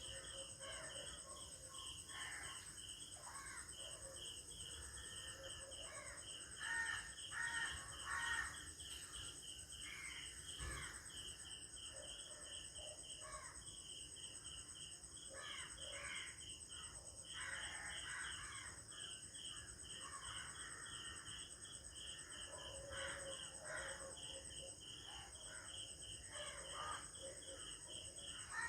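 Early-morning village ambience: crickets and other insects chirping in a steady pulse throughout, with crows cawing on and off. The loudest moment is three caws in quick succession about a third of the way in.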